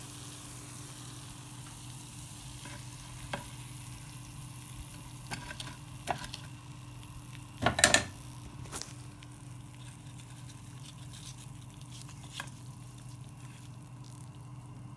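Jalebi batter sizzling as it deep-fries in oil, with a few sharp clicks of tongs against the pan and a brief louder clatter about halfway through.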